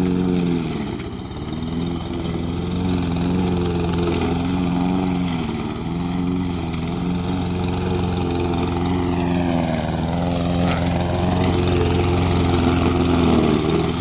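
Briggs & Stratton OHV single-cylinder four-stroke engine on a walk-behind lawn mower running steadily, its speed sagging briefly and picking back up several times, most deeply about ten seconds in.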